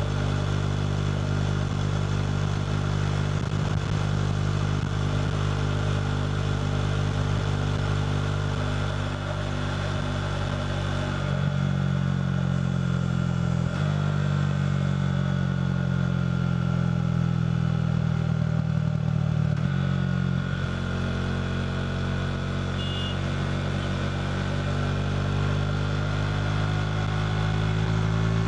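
KTM RC 390's single-cylinder engine running through a Two Brothers slip-on exhaust on the move, a steady note that shifts in pitch a few times around the middle and climbs slowly near the end.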